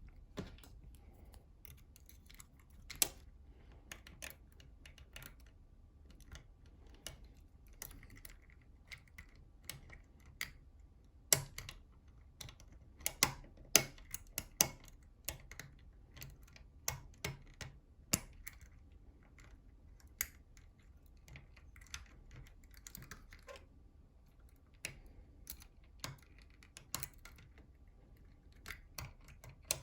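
Irregular small metallic clicks and ticks of lock-picking tools working the levers of a NATO Mersey 10-lever lock, coming in uneven clusters with short pauses between them.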